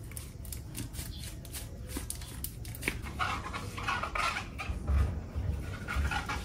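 Hands handling and rubbing wet apples in a plastic bowl in a stainless-steel sink: a run of small clicks and knocks, then from about three seconds in short higher-pitched squeaky sounds and a few dull bumps.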